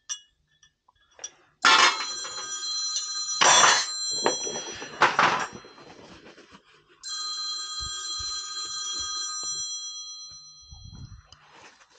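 A steady electric ringing tone with several pitches at once sounds for about four seconds, starting about a second and a half in, and again for about four seconds from about seven seconds in. Loud handling noises break in three times during the first stretch.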